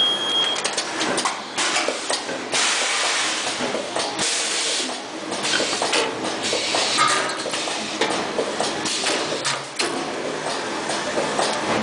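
T-shirt bag sealing and cutting machine running at speed: a dense, rapid clatter of its moving mechanism, with hissing bursts from its pneumatic cylinders, the longest about two and a half seconds in.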